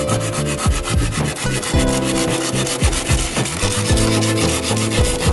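A long knife blade scraping and sawing back and forth on a dry bamboo pole in fast, rasping strokes.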